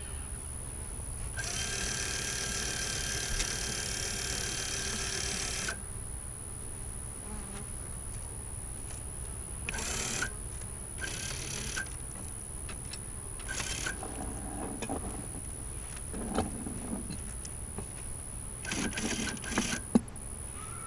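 Honeybees buzzing around a beehive, with one close, steady buzz for about four seconds near the start. From about halfway on, a wheeled aluminium hive lifter knocks and clatters against the wooden hive body as it is rolled in and its clamp bracket is set, with one sharp clank near the end.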